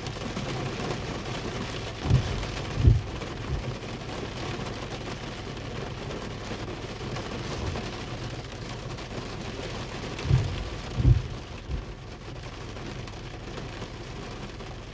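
Steady rain falling on a car's windshield and roof, heard from inside the car. Two short clusters of deep thumps, each two or three knocks, come about two seconds in and again about ten seconds in.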